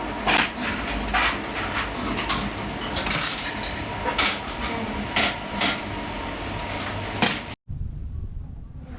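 Metal tools and parts clinking and knocking against each other, roughly once a second, over a steady workshop hum. The sound drops out briefly near the end and comes back quieter.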